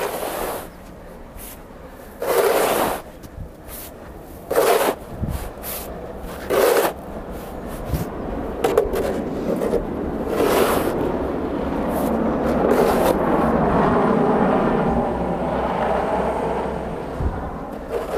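Snow shovel scraping and pushing snow along a driveway: short strokes about every two seconds, then one long continuous push through the second half.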